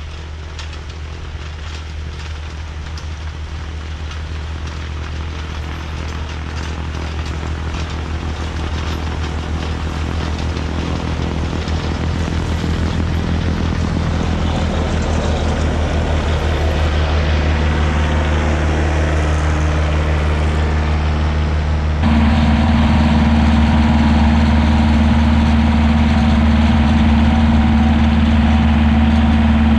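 Kioti DK40se tractor's diesel engine running under load with its PTO-driven snowblower throwing snow, growing louder as it approaches. About two-thirds of the way through the sound jumps suddenly to a louder, steadier engine drone.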